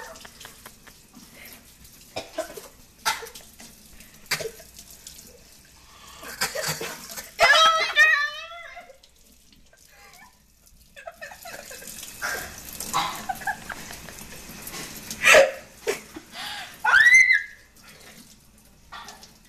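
Kitchen tap running into a stainless-steel sink while girls rinse and spit out a mouthful of cinnamon, with short coughs and splutters. A wavering laugh comes about eight seconds in, and a rising squeal near the end.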